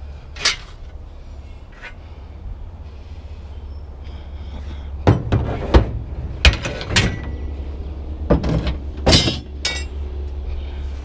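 A run of bangs and clanks as scrap items are handled and loaded into a vehicle, some briefly ringing like metal, over a steady low hum of an idling vehicle engine. One knock comes about half a second in, then a busier cluster of impacts between about five and ten seconds in.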